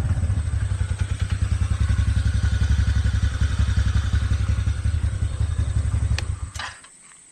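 TVS Ntorq 125 scooter's single-cylinder engine idling, its exhaust giving a steady rapid putter. Near the end there are two short clicks and the engine shuts off.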